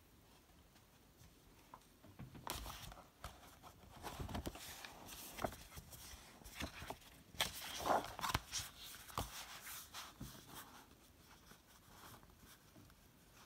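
A paper notebook being handled, set down and opened: irregular taps, knocks and rustling of cover and pages, loudest just past the middle and dying away near the end.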